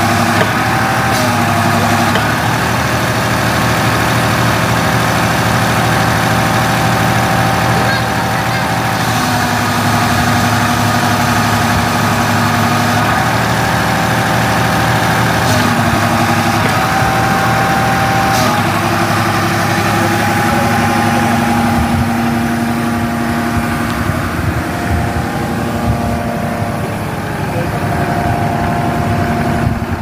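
Backhoe's diesel engine running steadily, with a whine that comes and goes every few seconds as the hydraulics are worked.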